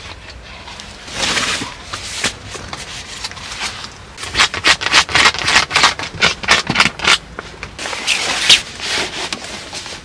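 Rubbing and rustling of padded sleeping mats being spread and smoothed over a car's cargo floor. There is one swish about a second in, then a quick run of scraping strokes through the second half.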